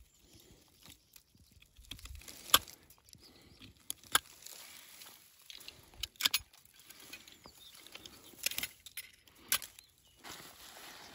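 A handful of short, sharp clicks at uneven intervals over a quiet background, with a quick cluster of clicks about six seconds in and another about eight and a half seconds in.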